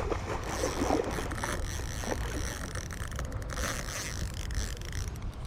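Steady rush of river water with low wind rumble on the microphone, and faint scattered rustles and clicks.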